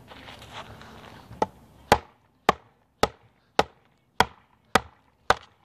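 A TOPS El Chete, a heavy 1095 high-carbon steel cleaver, chopping into a log. After one lighter strike, seven sharp chops come in an even rhythm, roughly two a second.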